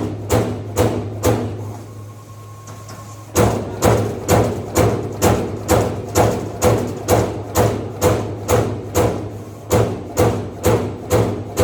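CNC turret punch press punching sheet metal: sharp, ringing punch strokes about two a second over a steady machine hum. The strokes break off for about a second and a half near the start, then resume at the same pace.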